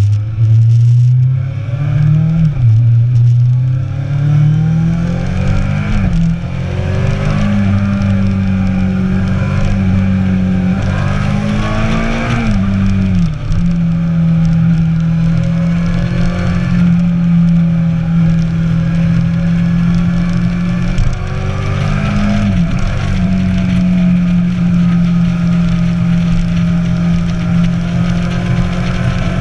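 Motorcycle engine heard on board while riding, its pitch climbing and then dropping back at each upshift several times, then holding steady at cruising speed.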